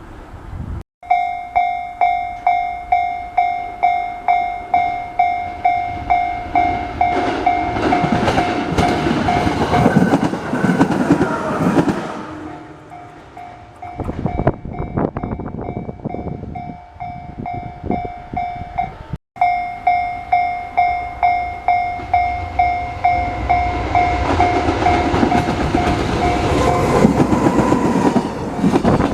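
Level-crossing warning bell ringing in steady repeated electronic dings, about one and a half a second, while a train passes over the crossing with rumbling and wheel clatter. After a short break the bell rings again and a second train passes near the end.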